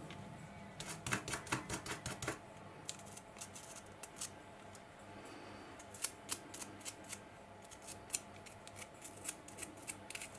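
Fibreglass scratch brush scrubbing a small metal part clean: a quick run of faint scratchy strokes in the first couple of seconds, then scattered lighter scratches and ticks.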